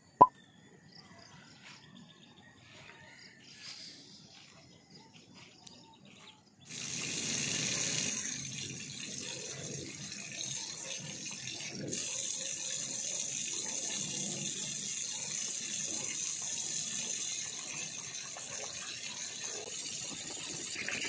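Tap water running into a sink during face washing: a steady rushing hiss that starts suddenly about six and a half seconds in. Before it, faint quiet ambience, after a sharp click at the very start.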